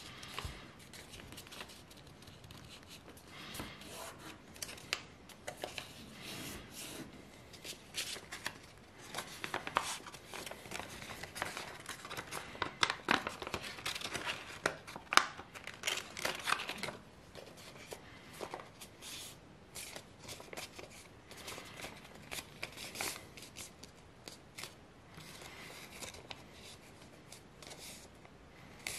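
A sheet of A4 paper being folded by hand into a paper plane: rustling and crinkling with sharp crackles as the folds are creased. It is busiest and loudest in the middle stretch.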